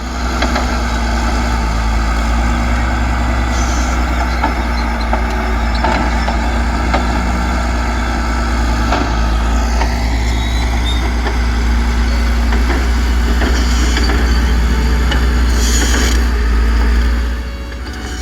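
Heavy diesel engine of construction plant running steadily with a deep rumble and a few faint knocks, easing off near the end.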